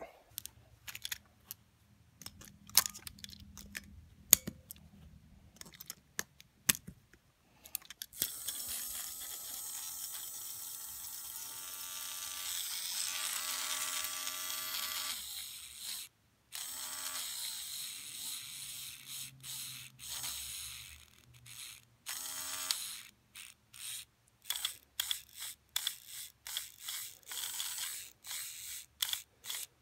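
A battery-powered TrackMaster toy train engine, handled with scattered clicks, then its small electric motor and plastic gears whirring steadily from about eight seconds in while the engine is held in the hand. Near the end the motor runs in short stop-start spurts.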